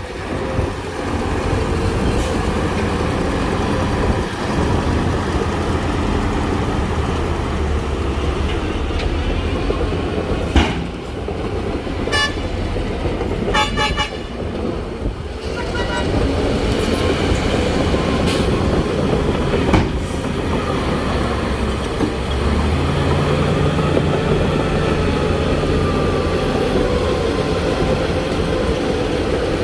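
Heavy diesel earthmoving machinery running steadily, with a few sharp knocks. Around the middle there is a quick series of short horn toots.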